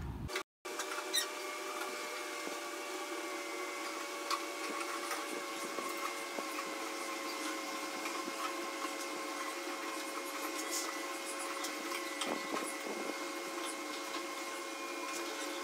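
Aquarium water draining through a siphon hose into a plastic bucket: a steady trickle with many small scattered clicks and splashes.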